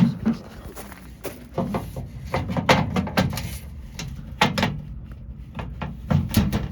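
Irregular knocks and clunks from a hydraulic parking-lot gate arm and its mechanism as the arm is lowered.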